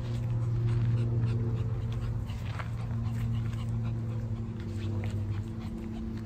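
Shih Tzu panting and sniffing in the grass, over a steady low drone.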